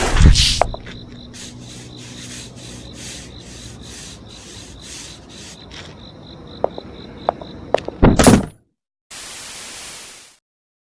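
A loud thudding hit at the start, then a quiet outdoor background with a thin steady high whine and a few light clicks. A second loud thud comes about eight seconds in. After a short silence there is a second of even hiss, like static.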